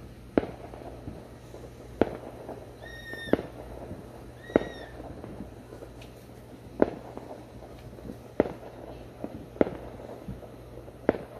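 Fireworks going off, about eight sharp bangs at uneven intervals. Two short high-pitched tones are heard in the first half, over a steady low hum.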